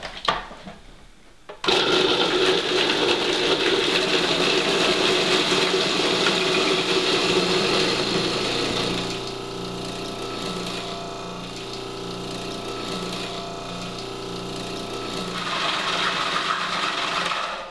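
Electric food processor motor running, puréeing avocado with lemon dressing into a thick, creamy spread. It starts about a second and a half in, gets quieter and steadier about halfway through, and stops just before the end.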